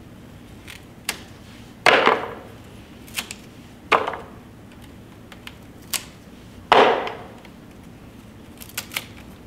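Hand cutters snipping through a bundle of bouquet flower stems to trim them to length: three loud snips with a short crunch, about 2, 4 and 7 seconds in, with light clicks of the blades between them.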